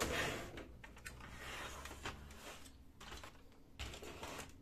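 Plastic paper tray of a Brother HL-5250DN laser printer sliding out of the printer with a light scraping hiss, followed by small plastic clicks and knocks as it is handled and set down.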